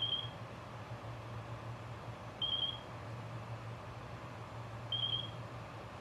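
FrSky Taranis radio transmitter beeping in bind mode: a short, high, warbling beep about every two and a half seconds, three times, over a steady low hum.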